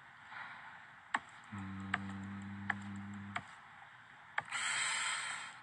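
A phone handled and tapped: scattered sharp taps and clicks, a steady low hum for about two seconds in the middle, and a loud hissing rustle for about a second near the end.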